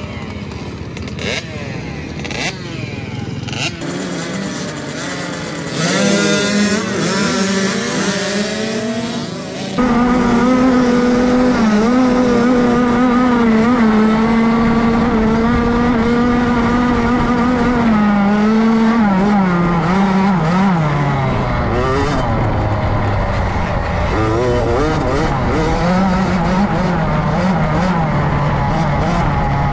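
Small 65cc two-stroke motocross bikes idling and revving together at a race start, revving harder a few seconds in. Then, abruptly louder, one GasGas MC65 two-stroke engine heard close up from the bike itself, held at high revs, falling in pitch about two-thirds of the way through and winding up again near the end.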